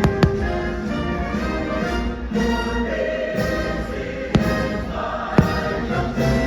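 Orchestral music with a choir singing, cut by sharp firework bangs: two just at the start, one about four and a half seconds in and another a second later.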